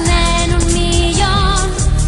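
Upbeat pop theme song with a steady beat and children's voices singing a melody with vibrato.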